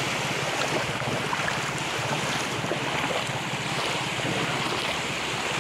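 Small waves breaking and washing over a shallow sandy shore, a steady rush of surf, with wind buffeting the microphone.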